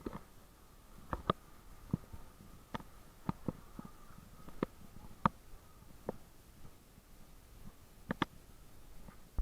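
Faint, irregular clicks and taps, about a dozen, some louder than others, over a faint steady high hum.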